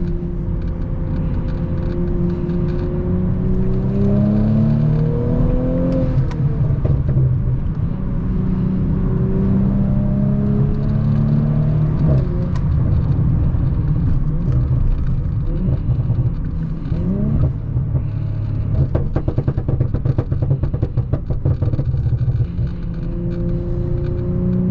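Tuned B9 Audi S4's turbocharged 3.0-litre V6 pulling hard through the gears, its note climbing and dropping back at each upshift. About three-quarters of the way through comes a rapid run of exhaust pops and crackles off the throttle, then it pulls again near the end.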